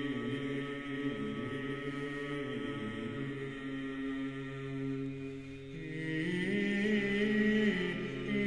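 Slow, chant-like background music of long held notes moving step by step in pitch, growing louder and higher about six seconds in.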